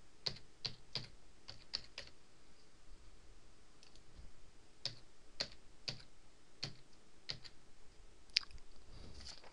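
Keys pressed on a computer keyboard. There is a quick run of about six keystrokes in the first two seconds, a pause, then about six slower, separate keystrokes.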